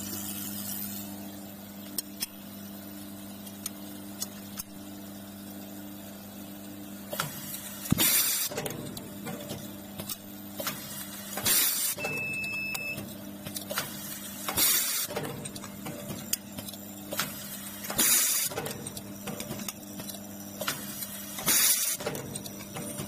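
Automatic-feed fastener insertion press running: the vibratory bowl feeder hums steadily while, from about a third of the way in, the pneumatic press cycles every three to four seconds, each cycle a roughly one-second hiss of compressed air with clicks, about five times.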